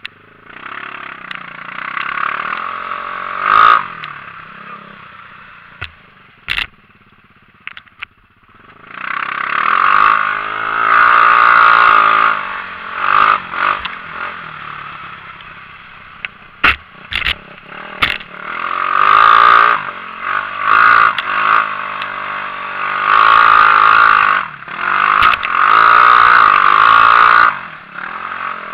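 Xinling 250 cc off-road buggy heard from the driver's seat, its engine revving up hard in repeated surges, with a quieter lull of a few seconds before the revs climb again about nine seconds in. Several sharp knocks and clatters are heard among the engine noise.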